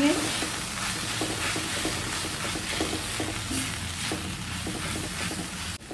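Spice masala of onion, tomato and ground spices sizzling in oil in a kadhai while a spatula stirs and scrapes it around the pan, cooking the masala on a low flame. The sound cuts off suddenly near the end.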